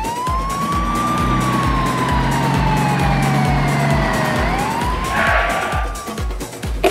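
A siren sound effect: one slow wail that rises, sinks gradually over about four seconds, then rises again. It plays over background music with a steady thumping beat.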